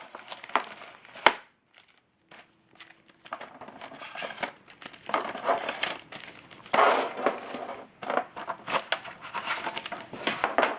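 Wrapped hockey card packs crinkling and rustling as they are pulled out of the box and handled. There is a sharp click about a second in, and a brief drop to near silence just after.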